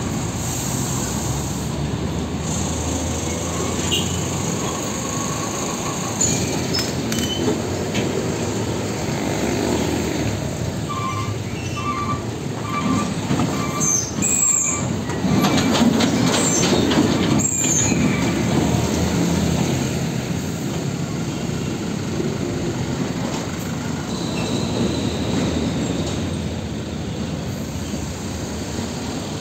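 Heavy diesel tractor units hauling fuel tanker semi-trailers rolling slowly past, engines and tyres rumbling, loudest a little past halfway. A run of about six short high beeps comes a little before the middle, and a few brief high squeals follow in the middle.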